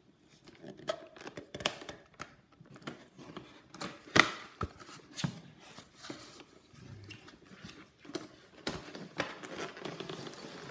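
A cardboard toy box with a plastic window being handled and tipped over: irregular taps, knocks and rustling, the sharpest knock about four seconds in.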